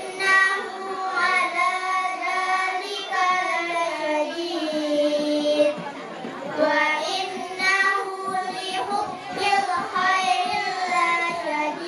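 Girls chanting a short surah of the Quran in a melodic recitation, amplified through microphones, with long held notes and a brief pause about halfway through.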